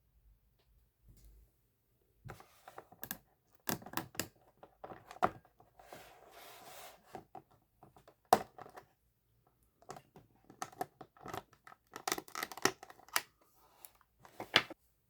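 Toy packaging being opened by hand: irregular clicks, scrapes and tearing of cardboard and plastic, with a longer scraping rasp around the middle.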